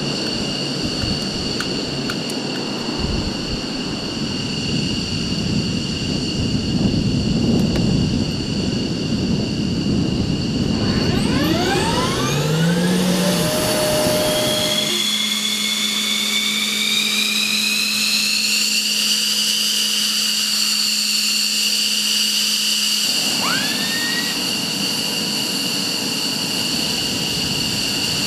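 Jet engines running: a steady high turbine whine over a rumble, with several rising sweeps in pitch a little before the middle as a turbine spools up, and another rising sweep about two-thirds through.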